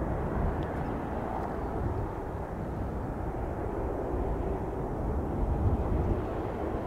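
Aircraft engine noise, a steady rumble without a clear pitch.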